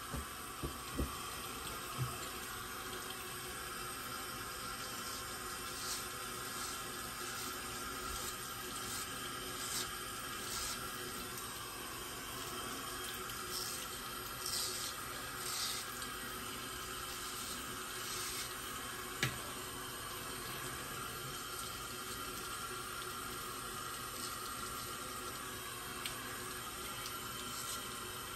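Bathroom tap running steadily into the sink, with short faint scraping strokes of a straight razor through lather and stubble. A few light clicks, the loudest about two-thirds of the way through.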